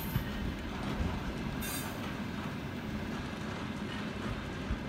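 Freight train of covered hopper wagons rolling past: a steady rumble of wheels on the rails with a few sharp knocks as wheels cross rail joints, and a brief high squeal about a second and a half in.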